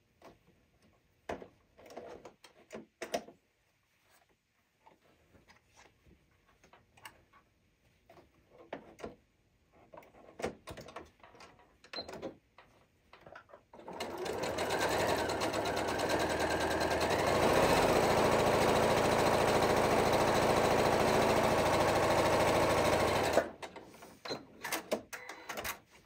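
Scattered light clicks, then a Janome electric sewing machine running steadily for about nine seconds as it stitches a straight seam through cotton fabric. It stops suddenly with a few more clicks after it.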